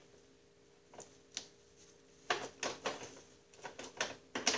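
Scattered light metal clicks and taps from hands fitting a self-tapping bolt into the top of a Snapper rear-engine rider's steel frame, over a faint steady hum.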